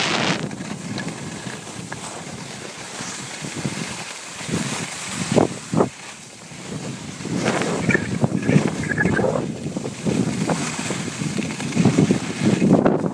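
Wind buffeting the microphone while moving down a ski slope, with the swelling scrape of skis turning on packed snow.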